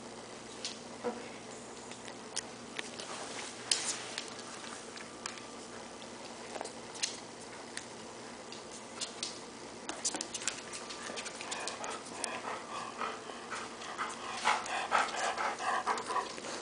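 Dogs moving about, with scattered light clicks. In the last few seconds a Golden Retriever pants and breathes close to the microphone, the loudest part.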